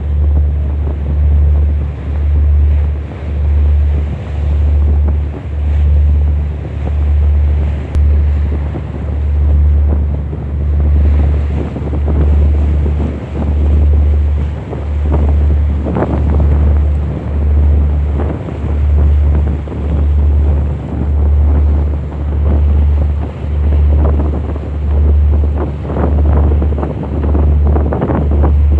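Wind buffeting the microphone by the sea, with waves washing, over a deep low throb that pulses evenly about once a second.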